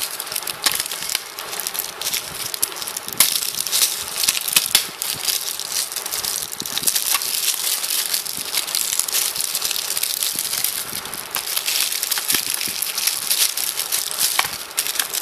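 Plastic wrap and CD album packaging crinkling and rustling as the albums are opened and handled, with many small sharp crackles.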